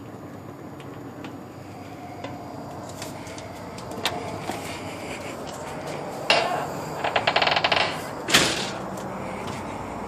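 A sudden clatter, then a quick rattling run of clicks lasting under a second, then a single loud knock just after eight seconds: hard-object knocks and rattling as the person filming moves out onto the porch.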